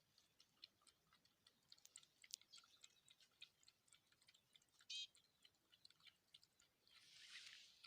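Faint, irregular wet clicking of puppies lapping milk from a bowl, with one brief high-pitched squeak about five seconds in.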